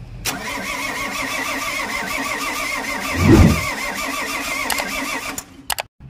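Diesel engine of a Volvo EC210B Prime excavator being cranked by its starter motor, with a wavering, pulsing starter whine. A loud low surge comes about three seconds in, and the cranking cuts off abruptly a little after five seconds, followed by a few clicks.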